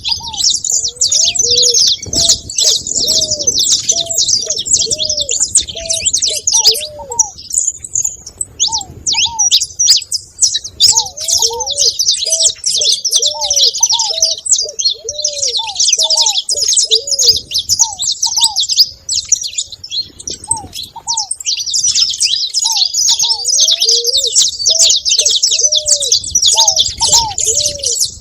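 A flock of saffron finches chirping and chattering nonstop, with ground doves giving bouts of low, repeated cooing notes in between.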